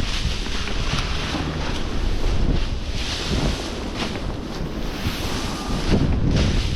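Strong wind blowing across the microphone: a steady rush with heavy low buffeting, rising and easing in gusts.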